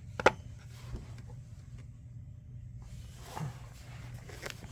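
Hard plastic toy parts clicking and knocking as a Masters of the Universe Origins Stridor figure is fitted onto a plastic castle playset: one sharp click shortly after the start, then fainter knocks and another click near the end.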